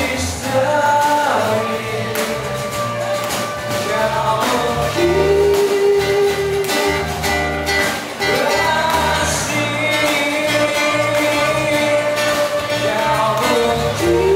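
Live band performance: a male vocalist singing in Malay, holding long notes, over strummed acoustic guitars and a drum kit.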